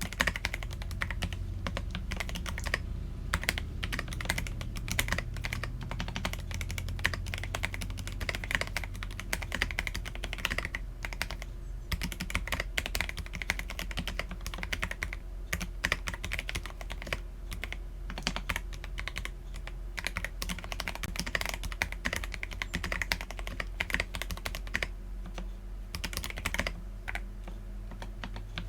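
Typing on an Akko PC75B mechanical keyboard with lubed Akko Jelly Black linear switches and Cherry-profile PBT keycaps: a steady run of keystrokes, with a few brief pauses.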